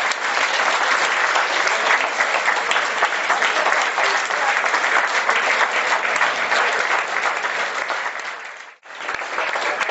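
Audience applauding, a dense steady clapping that breaks off suddenly for a moment near the end and then resumes.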